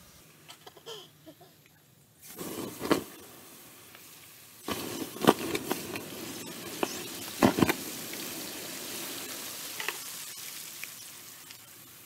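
Water poured over red-hot iron ore rocks, hissing and sizzling as it flashes to steam, with sharp pops. It comes in two surges, about two seconds in and again near five seconds, then tapers off. The rocks are being quenched to shock them and crack the ore so it turns brittle for crushing.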